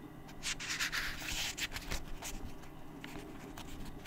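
Paper rustling as the pages of a paperback book are handled and turned: a cluster of soft swishes and crackles in the first two seconds, then a few fainter ticks.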